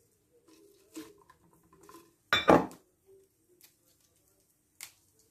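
Glass jar and kitchenware being handled on a plate and wooden cutting board: light knocks and clinks, with one louder clatter about two and a half seconds in.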